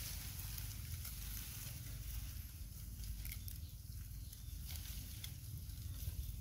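Faint scattered clicks and crackles over a steady low rumble: a long-tailed macaque picking apart and chewing a small crab.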